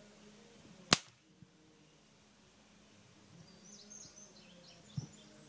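A Daisy BB gun fired once about a second in: a single sharp crack.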